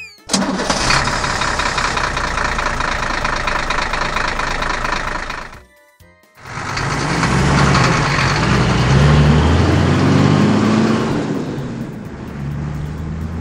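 Truck engine sound effect: it idles with a fast, even clatter for about five seconds, breaks off briefly, then comes back louder, its pitch rising and falling as it revs and the truck drives off.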